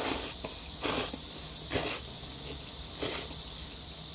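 A person slurping jjajangmyeon (black-bean-sauce noodles) off chopsticks: four short, noisy sucks about a second apart.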